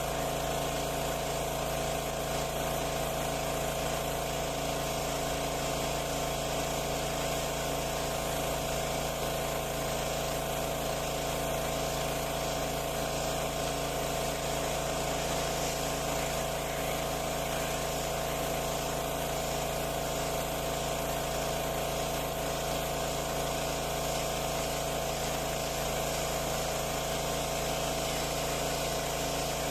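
Pressure washer running steadily and spraying water, an unbroken machine drone under a hiss of spray.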